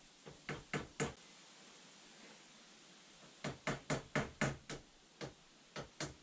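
Quick series of light knocks or taps, about four a second, in two runs with a pause of about two seconds between them, as a new plastic cap is worked onto the gear shift linkage.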